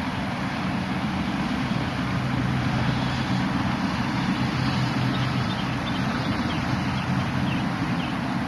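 A motor engine runs with a steady hum, mixed with wind and water noise.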